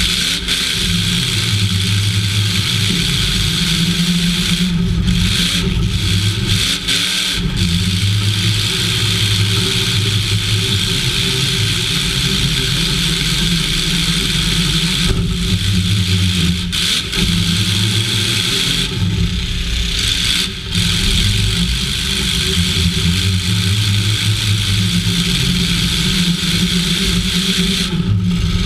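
Demolition-derby half-ton pickup's engine running loud, heard from inside its stripped cab: a steady engine drone with a few brief dips in level.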